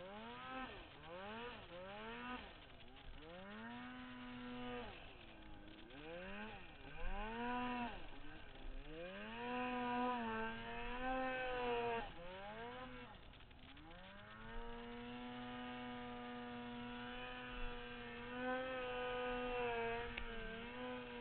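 Turbocharged 2008 Polaris Dragon 800 snowmobile's two-stroke twin revving up and down in a series of quick throttle blips, then held at high revs for several seconds near the end.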